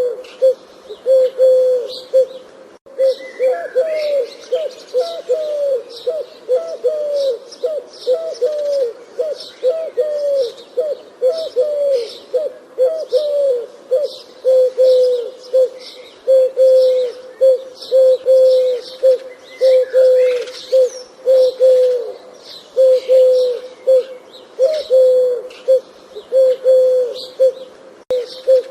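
A dove cooing over and over: short, low coos in quick runs at a steady pace, some of them bending down in pitch. Faint chirps of small birds sound behind it.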